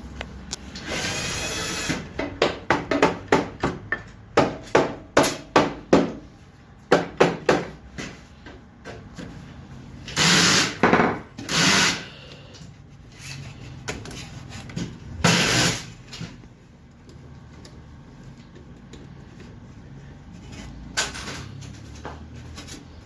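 Hand-tool work on a washing machine: a quick run of sharp taps and knocks, then three louder noisy bursts of about a second each, the last one about two-thirds of the way in.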